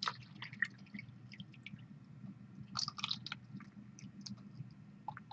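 Faint scattered clicks and light taps from small objects being handled, with a short cluster of them about three seconds in.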